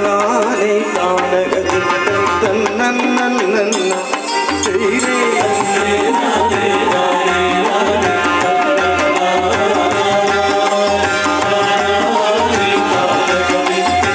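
Live Kuthiyottam music for the dance: a wavering melody over drums. From about four seconds in, a low drum beat keeps an even pulse of a little under two strokes a second.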